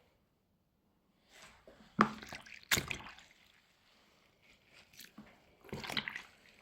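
Shredded cabbage being squeezed and pressed for sauerkraut, wet squelching with brine dripping, in irregular handfuls. Two sharp knocks stand out about two and three seconds in, and another burst of squelching comes near the end.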